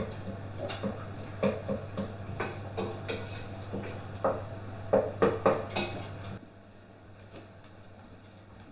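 Kitchen utensils and cookware clinking and knocking against each other, irregularly for about six seconds, over a steady low hum that cuts off suddenly about six and a half seconds in.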